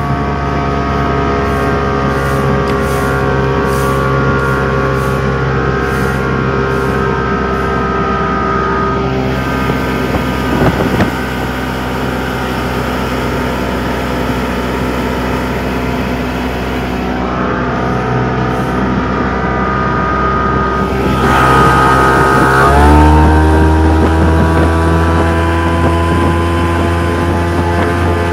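Mercury 85 hp outboard motor running steadily under way. A little over twenty seconds in it is opened up: the note gets louder, glides up in pitch and holds there, higher and stronger.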